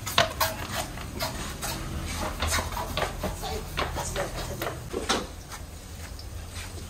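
Scattered clinks and knocks of dishes and cookware being handled, over a low steady hum, with a louder knock about five seconds in.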